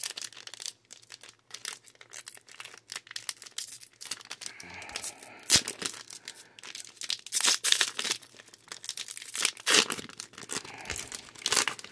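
Plastic trading-card booster-pack wrappers crinkling and tearing as packs are opened and handled: a dense, irregular run of crackles, louder about five and a half, seven and a half and ten seconds in.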